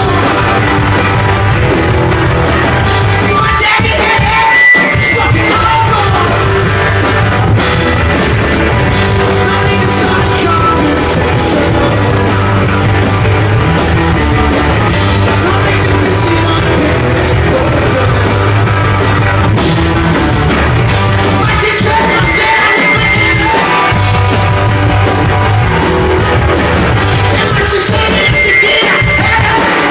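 Rock band playing live and loud, with singing over the band.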